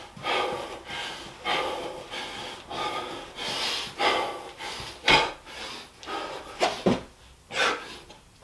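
A man panting hard between burpees, taking loud, quick breaths about one every half second to a second. A couple of dull thumps come in the second half as he drops down toward the floor.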